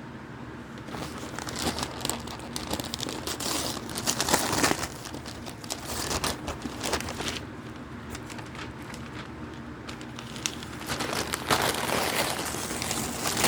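Packaging being crinkled and torn open by hand. The crackling comes in irregular spells with a couple of short lulls.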